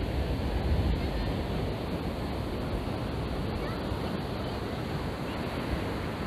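Ocean surf breaking on a sandy beach, a steady wash of noise, with wind buffeting the microphone in a low rumble that is strongest in about the first second.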